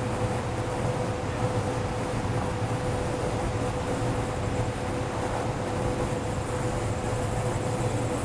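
Steady rumbling rooftop ambience as a dust storm's gust front nears: wind and distant city noise, under a constant low hum with a faint steady higher tone.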